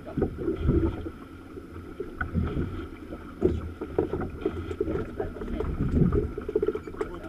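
Wind and water noise on a small boat at sea: an uneven low rumble of wind buffeting the microphone and water lapping at the hull, with occasional light knocks.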